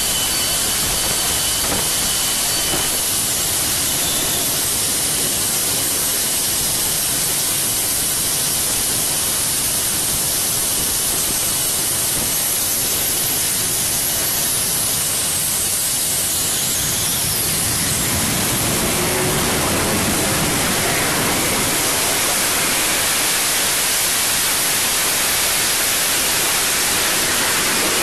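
AV-8B Harrier's Pegasus vectored-thrust turbofan running with a loud, steady rushing roar and a thin high whine. About two-thirds through, the whine drops away and the roar grows fuller and deeper as the engine comes up to power for a vertical takeoff.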